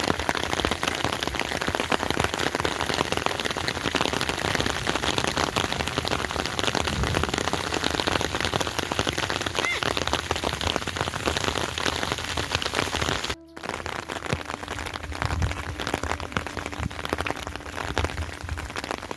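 Steady rain falling, a dense patter of drops. About two-thirds through it cuts out for a moment, then goes on a little quieter with a faint low hum under it.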